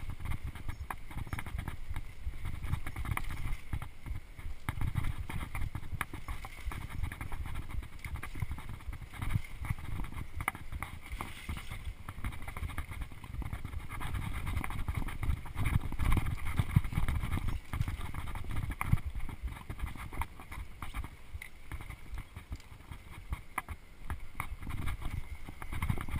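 Mountain bike rattling over a rough dirt singletrack: a continuous, irregular clatter of knocks and rattles from the bike over bumps, with a low rumble underneath.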